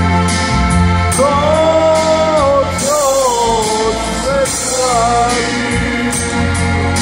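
Amplified live music: a man sings a melody over electronic keyboard backing with a steady drum beat. The voice comes in about a second in, sings a few phrases, and drops out a little after five seconds, leaving the backing playing on.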